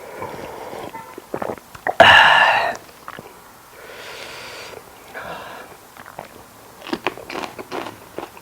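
A person chewing a mouthful of lettuce-wrapped grilled pork belly, with crisp crunching clicks near the end. About two seconds in there is a loud breathy burst, like a sharp exhale or sneeze.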